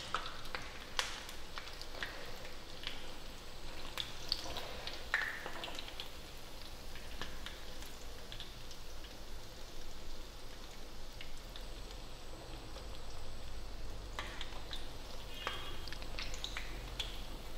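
Sweet fritters (vade) sizzling as they deep-fry in hot oil in a kadhai. A slotted metal spoon gives a scattering of light clicks and scrapes against the pan as it turns the fritters and lifts them out.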